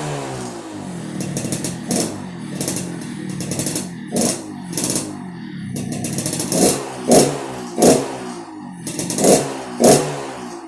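Motorcycle engine revved in quick throttle blips, about eight short bursts, each dropping back to a rough, rumbling 'ngorok' (snoring) note as the revs fall.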